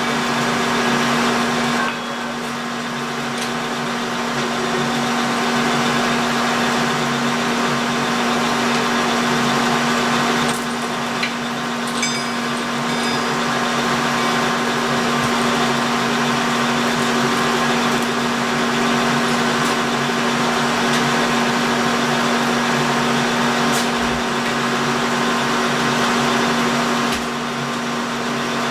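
A metalworking machine tool running steadily as it cuts a keyway in a steel shaft: a constant motor hum with cutting noise over it. The cutting noise dips slightly about two seconds in and again near the end, with a couple of light clicks midway.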